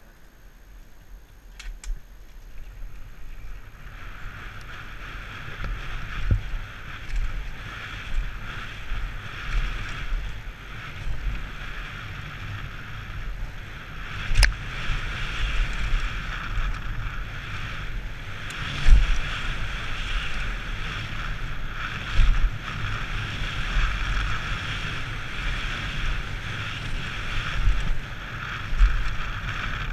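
Mountain bike rolling fast down a dirt forest trail, heard from a helmet camera. A steady rush of tyre and wind noise builds over the first few seconds and holds, with low rumbling and occasional thumps as the bike hits bumps. The sharpest thump comes a little before halfway, and two more soon after.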